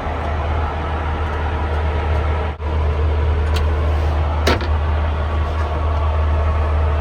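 Steady cabin noise of a Boeing 737-800 in flight: a deep engine drone under an even rush of air. A single short click comes about four and a half seconds in.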